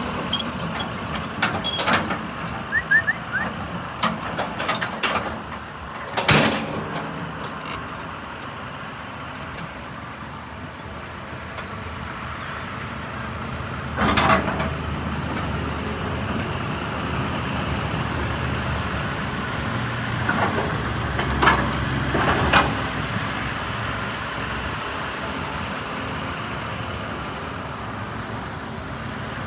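Deere 210G LC excavator's diesel engine running steadily. A high steady whine sits over it for the first few seconds, and a few short sharp bursts of noise come through.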